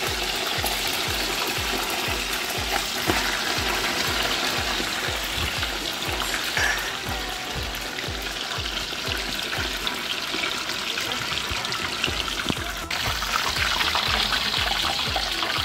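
Fish pieces frying in a pot of hot oil: a steady, crackling sizzle that grows louder near the end. A low, even beat of background music runs underneath.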